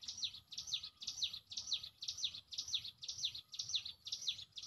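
A bird calling from the trees in a fast, even series of high, downward-slurred notes, about two a second.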